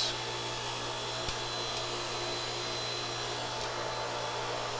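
Steady hum and whir of machinery running in a yacht's engine room, with a constant low hum and a faint high whine over it.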